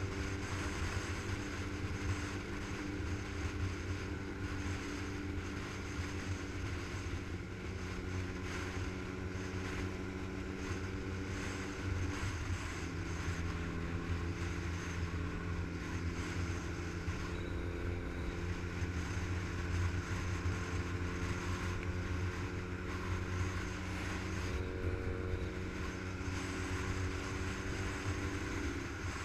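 Motorcycle engine running steadily at cruising speed, heard from a camera mounted on the bike, with wind rushing over the microphone. About twelve seconds in, the engine note drops a little and then holds steady again.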